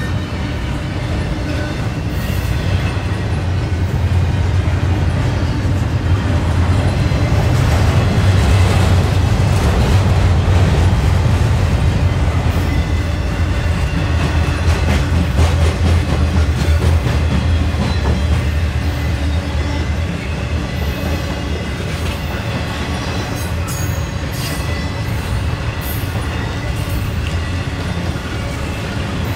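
Long CSX intermodal freight train rolling slowly past: a steady low rumble of cars on the rails that grows louder about a third of the way in and then eases. Short high ticks are scattered through the second half.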